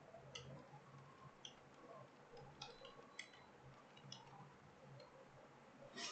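Faint computer keyboard keys clicking at an irregular pace, one or two a second, with a quick cluster near the end, over a low steady hum.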